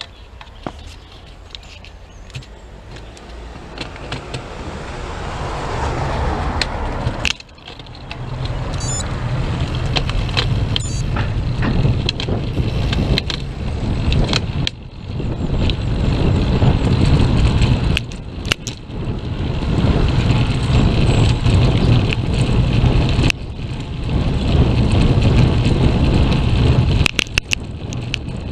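Wind rumble and road noise on a bicycle-mounted action camera's microphone while riding, with frequent clicks and rattles from the bike and mount. It builds over the first several seconds and breaks off abruptly a few times.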